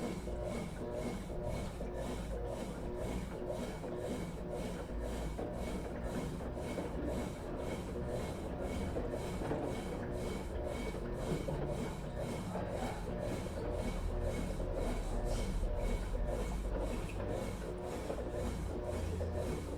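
Consul Facilite 11 kg washing machine agitating during its rinse cycle: a steady mechanical churning and rubbing with a low rumble and a regular beat of about two strokes a second.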